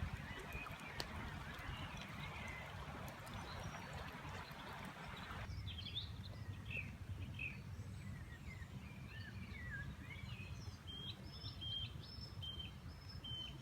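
Outdoor riverside ambience: a steady rushing noise that cuts off abruptly about five seconds in, then songbirds singing, with repeated short high chirping notes in the last few seconds, over a constant low rumble.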